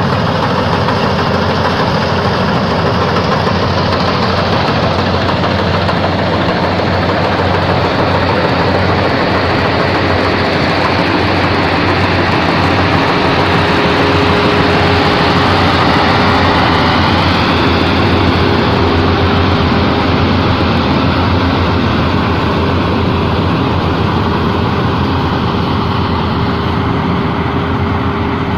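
K-BOS 880 multi-crop combine harvester running steadily at work, a loud continuous engine drone with machinery noise; a steady whine joins in about halfway through.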